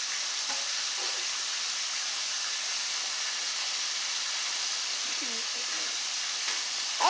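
A steady hiss, with faint voices in the background briefly about five seconds in.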